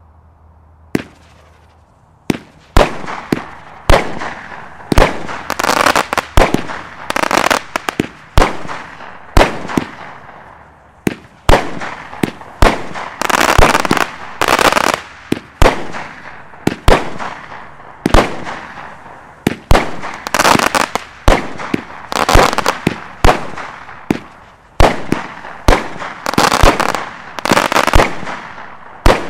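Sphinx multishot firework cake firing a long barrage of shots, about one to two a second, each sharp bang followed by a short fizzing burst of the star effect. A faint first shot comes about a second in, and the barrage runs steadily from about two seconds on.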